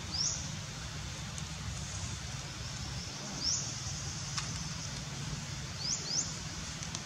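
A bird's short, high, rising chirps: four of them, two close together near the end. A steady low rumble runs underneath.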